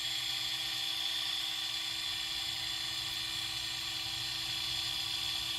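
Small 12-volt electric motor of a cheap single-speed mini lapidary/lathe running, a steady high-pitched whine that does not change in speed.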